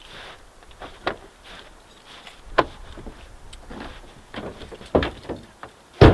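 A few separate sharp knocks and clunks a second or more apart, the loudest one near the end.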